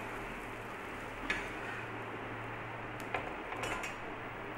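Steel spatula scraping under an adai dosa on an iron tawa and lifting it off, heard as a few short metallic clicks and scrapes about a second in and again around three seconds in, over a steady low hum and hiss.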